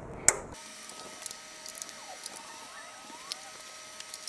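Screwdriver working Torx screws out of a sheet-metal computer chassis: one sharp metallic click near the start, then a few faint ticks over a quiet steady hum.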